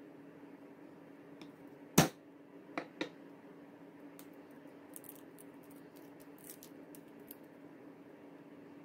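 A sharp knock on a wooden cutting board about two seconds in, then two lighter knocks, followed by faint dry crackling of papery garlic skin being peeled off a clove by hand.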